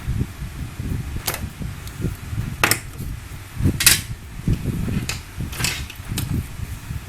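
Small tools and parts handled at a workbench: about six sharp clicks and taps, irregularly spaced, over low, uneven handling thumps.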